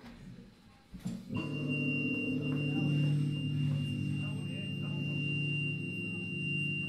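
Guitar amplifiers on stage between songs: a click about a second in, then a steady low amp hum and a constant high-pitched feedback whine.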